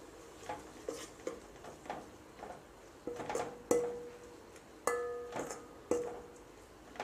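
A metal spoon stirring in an aluminium pot, knocking and scraping against its sides about a dozen times; the harder knocks, about halfway through, leave the pot ringing briefly.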